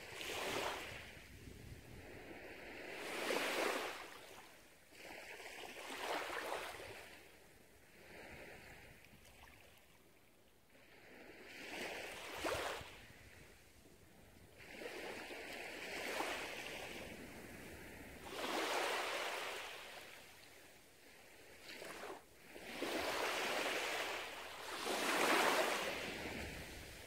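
Small waves lapping on a sandy beach of a calm sea, each wash swelling as it runs up the sand and hissing away as it drains back, about every two to three seconds.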